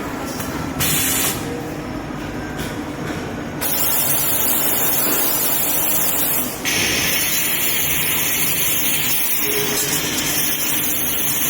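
Laser tube cutting machine running, with a loud hiss that switches on and off abruptly several times over a steady machine noise.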